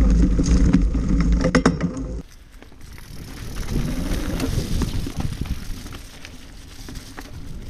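Specialized Stumpjumper 29er mountain bike rolling over a leaf-covered dirt trail: loud tyre rumble and a few sharp rattles, heard close to the front wheel. About two seconds in the sound drops abruptly to a quieter rolling crunch of leaves and dirt with light ticks.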